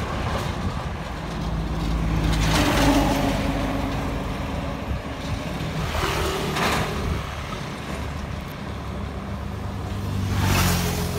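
Road traffic with trucks and a motorbike passing close by. Engine drone and tyre noise swell three times, at about three seconds, near the middle and near the end, as each vehicle goes past.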